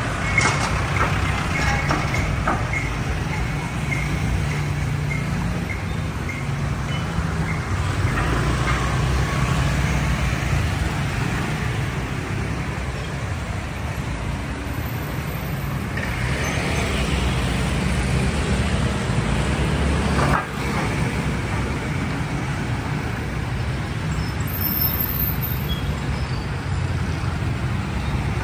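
Road traffic: vehicle engines running steadily in a low rumble, with a single sharp click about two-thirds of the way through.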